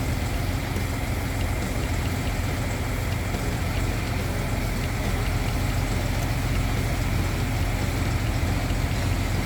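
Vehicle engine idling steadily with a low, even rumble.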